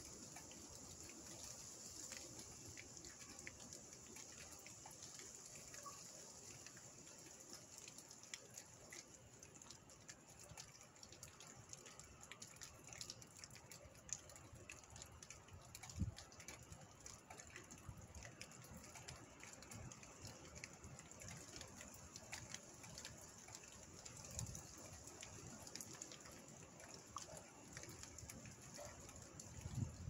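Faint, steady rain falling through trees and leaves, with many small scattered drop ticks. A few short low thumps of wind on the microphone, the strongest about halfway through.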